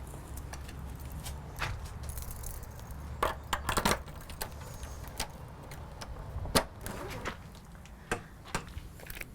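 A key working a multi-point front door lock to unlock it: keys jangling and a scatter of sharp metallic clicks from the lock, with a cluster of clicks about three and a half seconds in.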